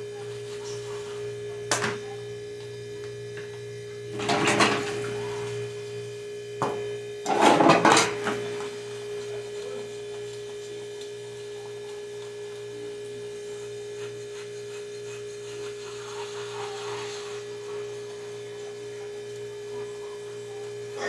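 Dishes being washed by hand: a sharp clink about two seconds in, then two brief noisy bursts of rinsing and handling about four and seven seconds in. Under it all is a steady electrical hum with a constant tone.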